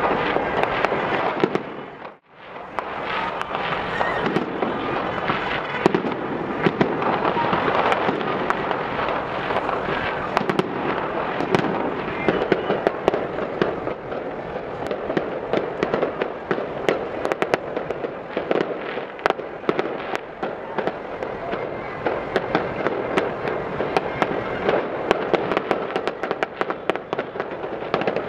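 Fireworks display bursting in the distance: a dense, continuous run of sharp bangs and crackles over a steady rumble. The sound drops out briefly about two seconds in, then carries on.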